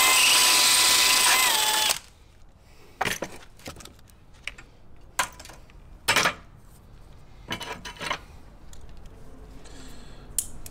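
Cordless drill running for about two seconds as it bores a hole through a small metal strip clamped in a vise, its whine dipping slightly in pitch before it stops abruptly. A few light metal clicks and clinks follow as the drilled piece is handled.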